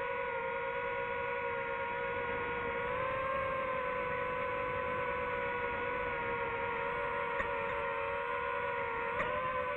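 DJI FPV drone's motors and propellers whining steadily in flight. The pitch wavers slightly and jumps up briefly near the end.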